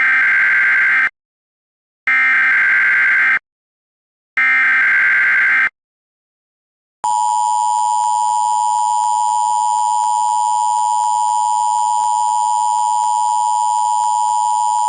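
Emergency Alert System header: three buzzy data bursts about a second long, each followed by a second of silence. About seven seconds in, the steady two-tone EAS attention signal begins and holds, announcing the tornado warning that follows.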